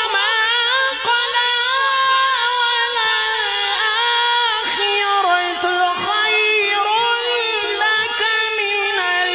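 A qari's high male voice reciting the Quran in melodic tajweed style, drawing one long ornamented line over a single vowel, with slow turns of pitch.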